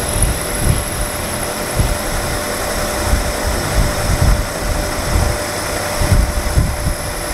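Milling machine running with a 3/8-inch end mill cutting cast iron in a cylinder head's intake port: a steady hum over an uneven low rumble from the cut.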